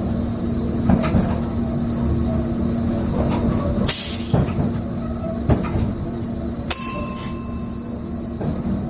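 Train running, heard from inside the driver's cab: a steady rumble with a constant hum, broken by several sharp clicks and knocks. One knock about four seconds in comes with a short hiss, and one near the end leaves a brief ringing tone.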